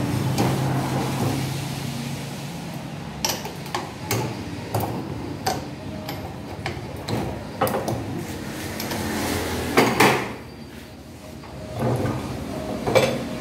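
Irregular metallic clinks and knocks of hand tools on an Isuzu 4BC1 diesel injection pump being dismantled in a vise, about one every half second, with two louder clatters near the end. A low steady hum fades out in the first two seconds.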